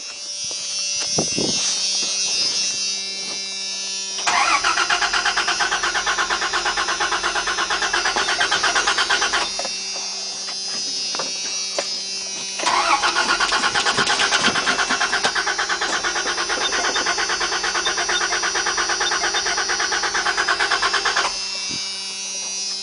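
Starter cranking the 1997 Dodge Ram 1500's 3.9-litre V6 in two long bouts, about five seconds and then about eight, with a fast, even churning rhythm. The engine never catches: the fuel relay is pulled, so it gets no fuel.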